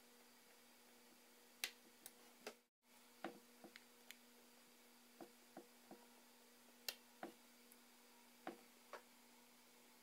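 Faint, irregular clicks and taps of small screwdriver tips, screws and phone parts being handled during iPhone 4S reassembly, about fifteen over the stretch, over a low steady hum. The sound drops out completely for a moment near the three-second mark.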